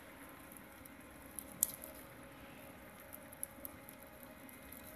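Lab two-roll mill running with polypropylene pellets in the nip of its heated rollers: a faint steady mechanical hum with a few sharp ticks, coming in two close pairs.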